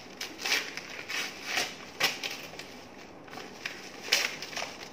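Christmas wrapping paper being torn open and crinkled by hand: several quick rips and rustles, with a short lull around three seconds in.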